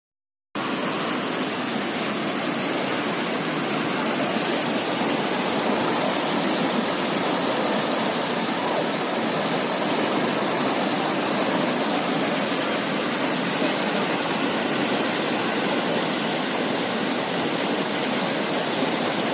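Fast-flowing floodwater of a swollen, muddy river rushing: a steady, dense water noise that begins about half a second in.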